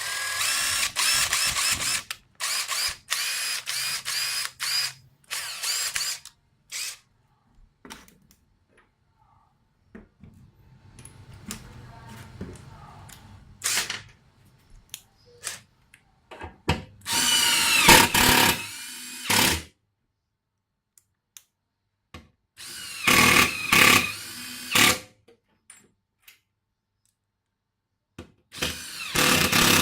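Makita TD134 14.4 V cordless impact driver run with no load, its trigger squeezed again and again. The motor whirrs up and winds down in quick blips and in longer runs of about two seconds, with short pauses between.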